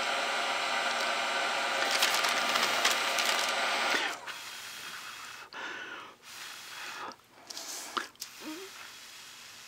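Heat gun running on its cool-down setting, its fan motor blowing with a steady whir. It cuts off about four seconds in, leaving only a few faint, short noises.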